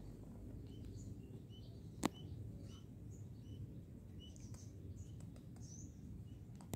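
Small birds chirping faintly: many short, high chirps over low, steady ambient noise, with one sharp click about two seconds in.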